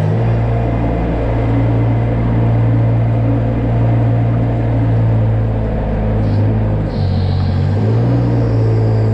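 Farm loader engine running steadily under load while its scraper pushes manure along a barn alley. The engine note drops for a moment about seven seconds in.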